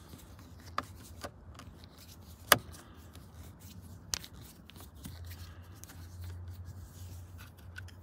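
Scattered small clicks and scrapes of a screwdriver and hands working on a steering-column multifunction (turn signal) switch and its plastic housing. The loudest is a sharp click about two and a half seconds in, with another about four seconds in.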